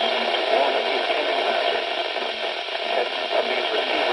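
Steady static hiss from a NOAA Weather Radio receiver, the sound of a weak or noisy broadcast signal.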